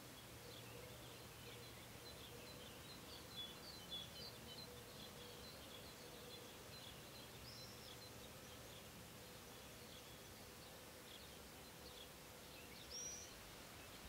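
Faint outdoor ambience of small birds twittering with short, high chirps, busiest in the first few seconds. Two clearer rising notes come about halfway through and near the end, over a faint steady hum.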